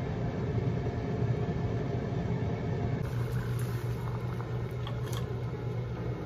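Kitchen cooking noise over a steady low hum: a pan of thick sauce simmering, then a large pot of water at a rolling boil as a bundle of dried hiyamugi noodles goes in, with a few light clicks of the noodles against the pot about five seconds in.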